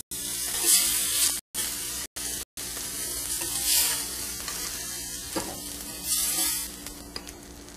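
Pepper-crusted venison steaks sizzling in a hot pan of fat as they are lifted out with a fork, the hiss swelling three times as each steak is moved.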